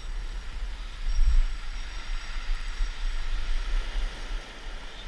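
Wind buffeting the microphone over a steady rushing noise, loudest about a second in.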